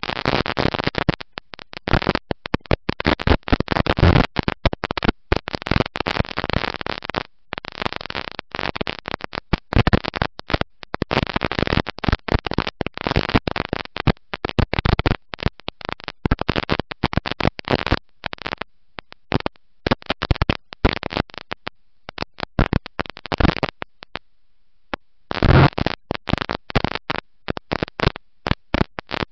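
Dirt-track race car running on track, heard through an overloaded in-car camera microphone as harsh, crackling noise that keeps cutting in and out. It thins out to scattered crackles for a few seconds past the middle, then comes back strongly near the end.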